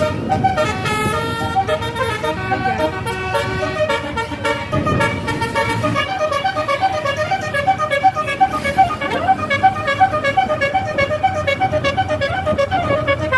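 Bus telolet basuri horns, multi-tone musical air horns, sounding held notes at first and then a fast string of short toots from about halfway through, over a low rumble.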